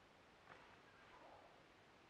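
Near silence: faint outdoor background.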